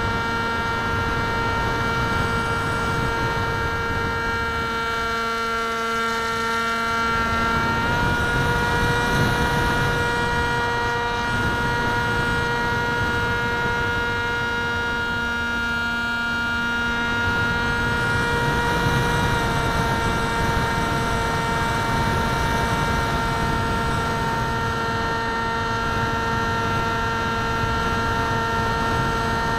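RC aircraft's motor and propeller running in flight, heard through an onboard keychain camera: a steady whine of several tones that steps up slightly about eight seconds in and eases back down about nineteen seconds in, over wind rushing past the camera.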